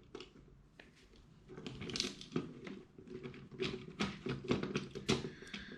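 Small plastic LEGO Technic parts clicking and rattling as they are handled and an axle rod is pushed through them: a string of light, irregular clicks, few at first and busier from about a second and a half in.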